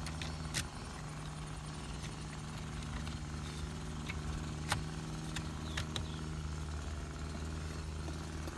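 Plastic gear shift console trim pieces clicking and knocking as they are handled and fitted back together, a few sharp clicks over a steady low hum.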